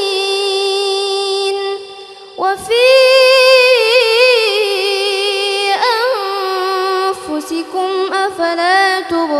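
A child reciting the Quran in melodic tajweed style, the voice held in long ornamented notes with a wavering vibrato. There is a short breath pause about two seconds in.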